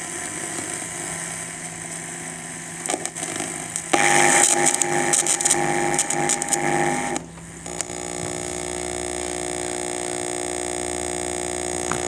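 Electrical buzz and whine from a monitor's built-in speaker, picked up through a connected 3.5 mm aux cable: the interference 'beep' noise of an unshielded aux connection. It jumps louder with crackles about four seconds in, while the plug goes into the PC, drops out briefly near seven seconds, then settles into a steady buzzing hum.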